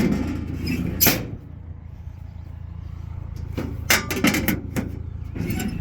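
A few sharp knocks and clanks, one a little after a second in and several in the last two seconds, over a steady low engine hum.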